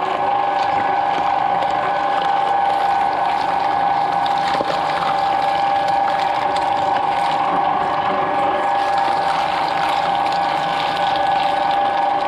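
Twin-shaft shredder running with a steady motor-and-gearbox whine while its toothed cutter blades chew through whole green papayas, with crunching and tearing of the fruit and one sharp crack about four and a half seconds in.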